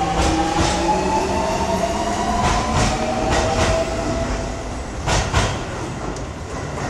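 Metro train running on its rails: a rising electric motor whine over the first few seconds, fading out later, with scattered sharp clicks from wheels over rail joints. Two louder clicks come about five seconds in.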